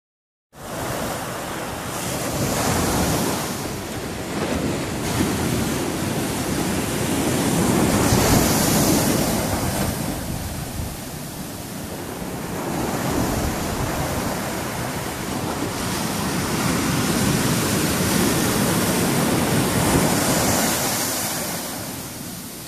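Ocean surf breaking and washing up a beach. The rushing noise swells and eases every several seconds as each wave comes in and draws back.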